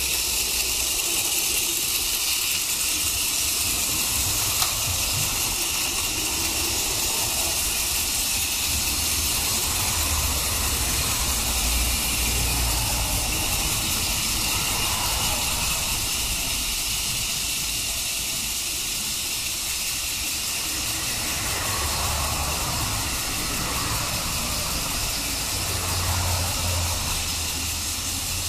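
Battery-powered TOMY Plarail toy trains running on plastic track: a steady high whirring hiss of small motors, gears and wheels, with a faint low rumble that comes and goes.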